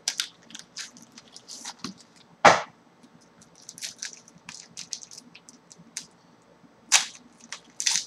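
Trading card pack being opened by hand: the foil wrapper crinkles and tears in short, irregular crackles and clicks, with a few sharper snaps, the loudest about two and a half seconds in and two more near the end.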